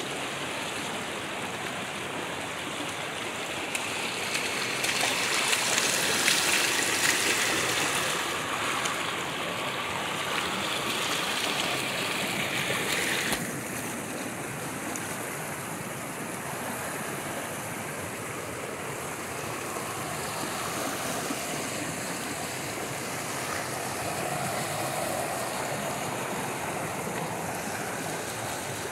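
Water rushing steadily, as of a mountain stream or falls, its sound changing abruptly about halfway through.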